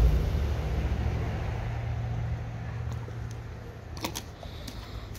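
A low, steady mechanical hum, loudest at the start and fading over the first couple of seconds. About four seconds in, a few sharp clicks as a dog snaps its teeth onto a hand-held stuffed sausage treat.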